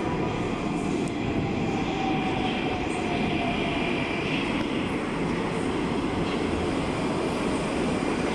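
81-760/761 'Oka' metro train running into an underground station along the platform. There is a steady rumble of wheels on rails, with a faint whine that falls slowly in pitch about two to three seconds in.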